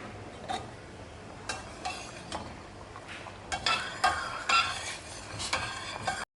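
A utensil stirring brown rice and water in a cooking pot, with scattered knocks and short metallic clinks against the pot, coming thicker in the second half; the sound cuts off abruptly near the end.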